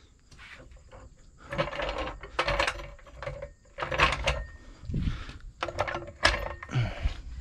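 Steel floor jack being handled: a string of irregular metal clanks, clicks and scrapes, with a brief faint squeak near the middle.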